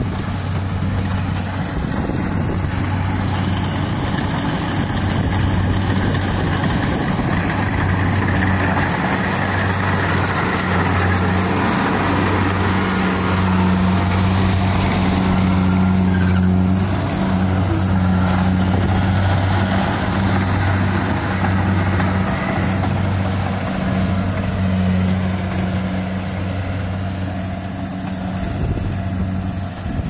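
Kubota DC-70 combine harvester running steadily while harvesting rice: a constant diesel engine drone with a low hum, with the machine's cutting and threshing noise mixed in. It grows a little louder around the middle as the machine passes close.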